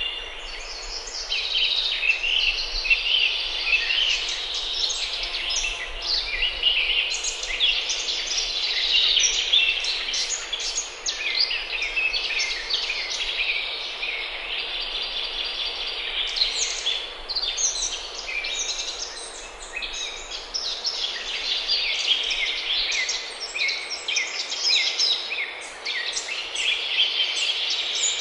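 Dense chorus of songbirds: many quick chirps and trills overlapping without a break.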